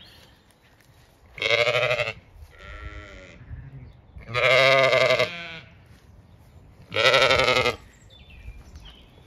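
Zwartbles sheep bleating: four wavering calls, three loud and one softer about three seconds in.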